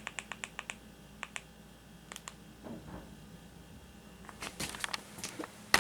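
A quick, even run of light clicks, about eight a second, stopping just under a second in, then a few scattered single clicks and a short cluster of clicks near the end.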